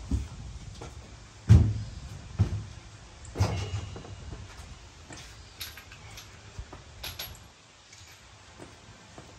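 A car wheel and tyre being handled and set down: a few dull thuds, the heaviest about a second and a half in, followed by lighter knocks and clicks.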